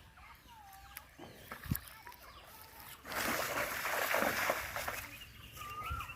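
Outdoor field ambience: a few faint bird chirps, and a rush of noise lasting about two seconds, starting about three seconds in.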